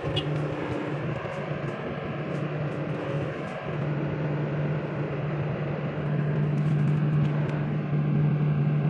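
Excavator's diesel engine running steadily with a strong low drone, getting louder over the second half.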